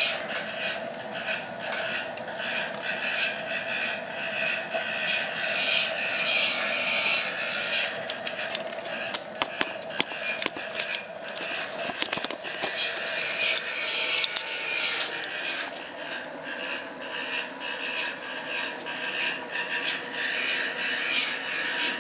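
Wood pellet burner running with its small DC blower turned down to about 6 volts: a steady hiss of the forced-draught fire over a steady fan hum, with a cluster of sharp crackles about halfway through.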